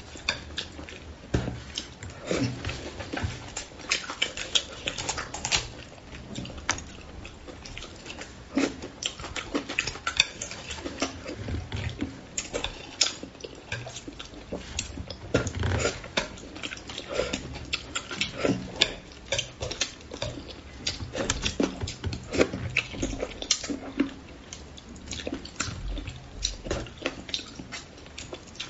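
A person eating spicy braised crucian carp close to the microphone: a steady, irregular run of wet chewing clicks and smacks.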